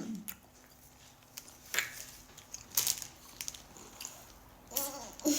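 Someone biting into and chewing strawberries: a few soft, wet crunches and mouth clicks, the loudest about two and three seconds in.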